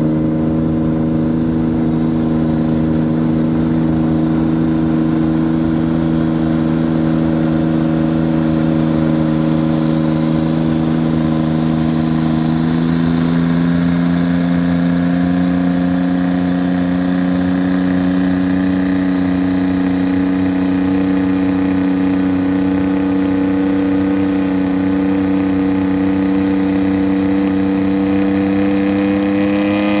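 Samson Switchblade flying car's engine running at a steady, high rpm during engine tuning. About halfway through the pitch steps up, then keeps rising slowly.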